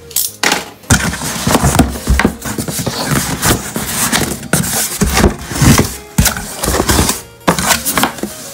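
Cardboard shipping box being opened by hand: the flaps are pulled back and the cardboard scrapes, crackles and knocks in a quick, irregular series. Background music plays underneath.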